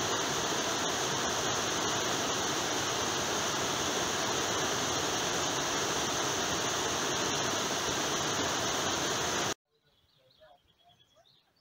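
Small mountain stream splashing and rushing steadily as it cascades over rocks in little falls. The sound cuts off abruptly about nine and a half seconds in.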